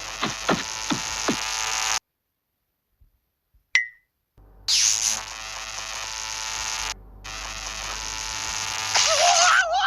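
Electric buzzing sound effect. It cuts off suddenly about two seconds in, and after a pause with one short beep it comes back for about five seconds, ending in a wobbling, rising whine.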